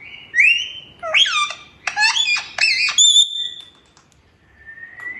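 Pet parrot chattering in short gliding notes, in its mimicked 'mian mithu' talk, then a high whistle held briefly about three seconds in; a fainter whistle follows near the end.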